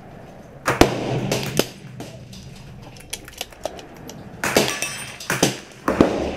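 Gunshots on a covered shooting range: one sharp crack about a second in, then three more in quick succession between about four and a half and six seconds, each with a short echo, with smaller metallic clicks between them.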